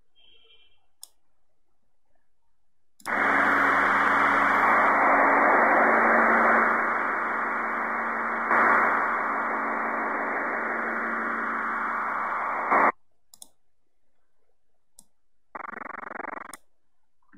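Static hiss from a recording of a radio broadcast being played back: a steady noise for about ten seconds that cuts off suddenly, then a second burst of static lasting about a second near the end.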